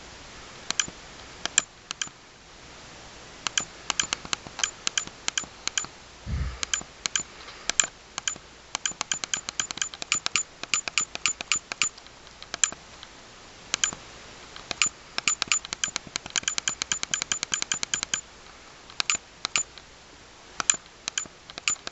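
Buttons of an Olympus Stylus VG-190 compact digital camera pressed over and over while setting the date in its setup menu, each press giving a short tick, sometimes singly and sometimes in quick runs of several a second. One low thump about six seconds in.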